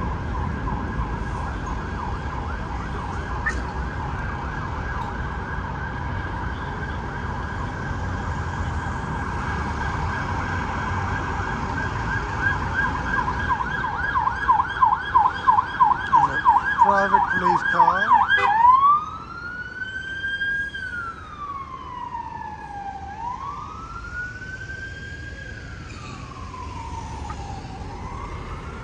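Emergency vehicle siren in city traffic: a fast yelp that grows louder, then switches about two-thirds of the way through to a slower wail rising and falling every three to four seconds, quieter than before. A low steady traffic hum runs underneath.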